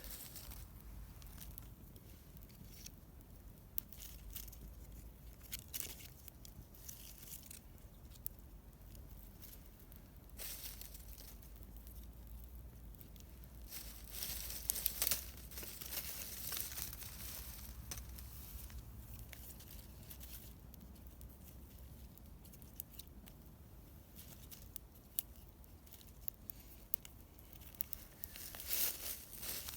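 Newly lit campfire crackling: irregular sharp snaps and pops of dry kindling, bunching into quicker flurries now and then, over a faint steady low rumble.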